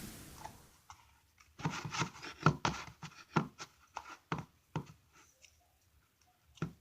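The last of a music track fading out, then a run of short, irregular knocks and scrapes from kitchen things being handled, over about three seconds.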